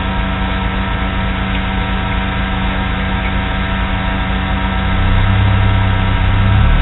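Fiat Seicento rally car's engine idling steadily, heard from inside the cabin; about five seconds in its low note grows louder.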